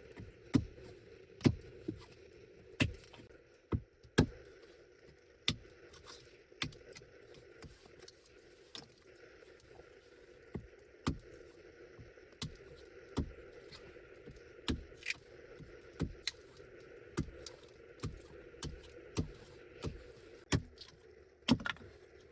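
A long run of sharp, short clicks, about one a second and uneven in loudness, over a faint steady background sound.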